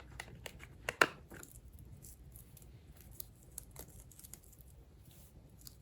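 Handling noise: a few sharp clicks and knocks about a second in, then faint scattered ticks and rustling.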